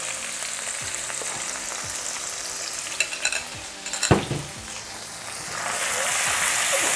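Garlic, ginger and chili paste, bound with a little batter, sizzling in hot oil in a pan as it is stirred. A few sharp knocks or scrapes of the utensil on the pan come around the middle, and the sizzle grows louder near the end.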